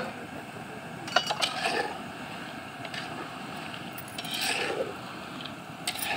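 Nimki frying in hot oil in an iron kadai, with a steady sizzle. A metal spatula scrapes and clinks against the pan a few times: about a second in, around the middle-to-late part, and near the end.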